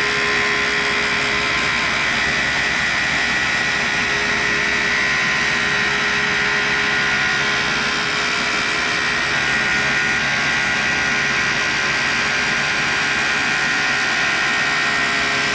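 1940s Cincinnati tool and cutter grinder running a 6-inch diamond parting wheel at about 4500 rpm, cutting through thick carbide: a steady whine with a hiss of grinding over it, unchanging throughout.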